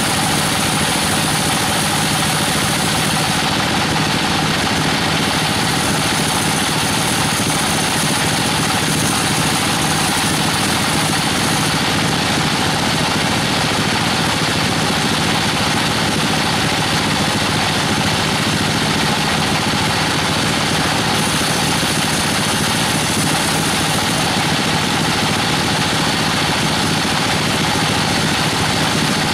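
Band sawmill running steadily, its blade cutting a weru (Albizia procera) log into slabs, with a high hiss that comes and goes as the blade enters and leaves the wood.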